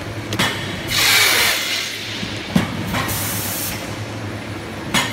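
Machinery running with a steady hum and a repeating cycle of a sharp click followed by a burst of air hiss, about every two seconds.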